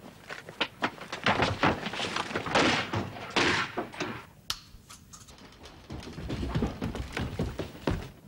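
A rapid, irregular series of heavy thuds and knocks, busiest and noisiest about one to four seconds in, with a single sharp crack about four and a half seconds in and another cluster of thuds near the end.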